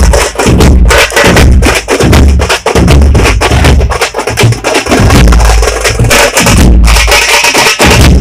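A troupe of tamate drums, large double-headed drums beaten with sticks, playing a loud, fast, driving rhythm. Deep beats fall at a steady pulse under a constant clatter of stick strokes.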